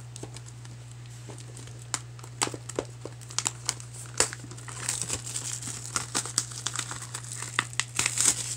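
Plastic shrink-wrap being torn and peeled off a Blu-ray case by hand: a few sharp crackles from about two seconds in, building into dense crinkling in the second half, loudest near the end.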